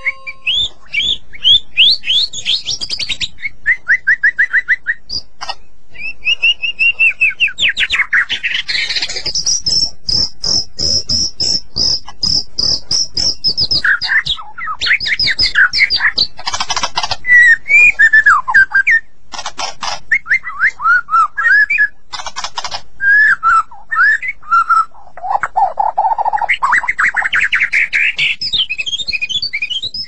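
White-rumped shama singing a long, loud, varied song of rapid repeated whistled notes and trills. Partway through comes a long, fast, high trill, then a few harsh rasping notes, and near the end a low phrase that sweeps steadily upward in pitch.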